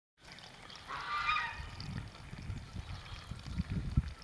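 A short honking call about a second in, over a low rumble.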